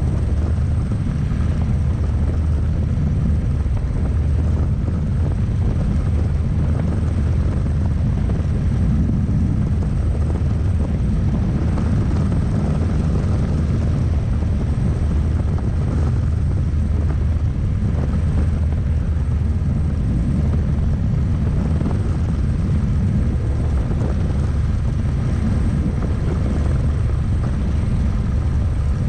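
Single-seat turbine-powered experimental helicopter in flight, heard from inside the cockpit: rotor and turbine running steadily and loudly, with a faint, steady high-pitched tone above the deep rotor noise.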